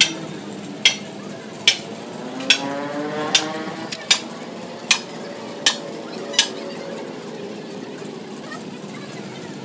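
Hand tool clinking against the steel wheel nuts and rim of a tractor wheel: a sharp metallic click about every 0.8 s, nine in a row, stopping about two-thirds of the way through, over a steady background hum.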